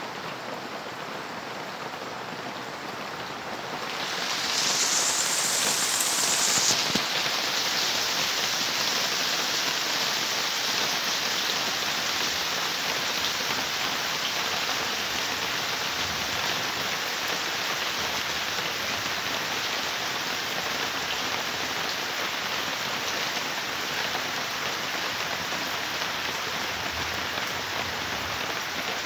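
Heavy rain pouring steadily, swelling louder about four seconds in and staying heavy.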